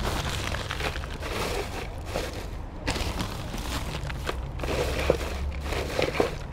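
A hand rummaging in a plastic bag of hay: the plastic crinkling and the dry hay rustling as a handful is pulled out.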